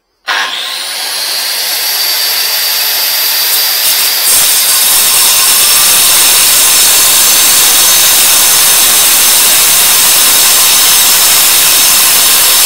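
Hikoki angle grinder switched on, its motor whine rising as it spins up, then cutting steadily into a concrete paving slab from the underside. The cut gets louder about four seconds in and stays loud.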